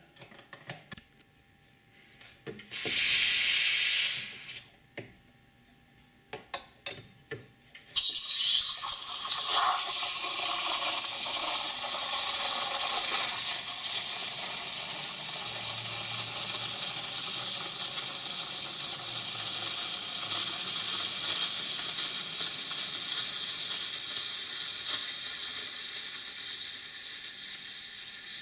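Sage Dual Boiler BES920 steam wand frothing milk in a stainless pitcher. A short burst of steam hiss about three seconds in and a few clicks come first, then a loud continuous steam hiss from about eight seconds, rougher for the first few seconds and steadier after that as the milk spins, slowly getting quieter toward the end.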